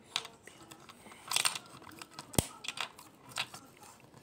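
Foil wrapper of a Kinder chocolate egg crinkling in short rustles as it is handled and torn by hand, with one sharp plastic click about two and a half seconds in.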